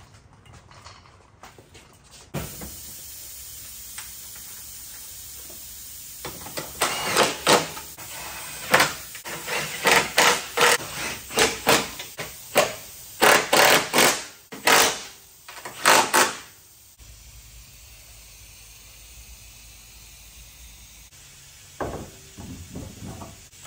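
Cordless power tool run in short, repeated bursts, driving fasteners on a car's front strut tower. A few short knocks near the end.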